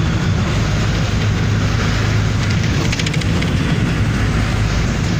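Vehicle engine running steadily with road noise, heard from inside the moving passenger compartment: a constant low drone.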